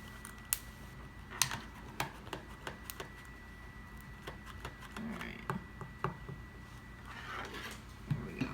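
Irregular clicks and light taps from a hot glue gun being worked around the stool's wooden frame, over a faint steady high whine. A brief rustle comes near the end.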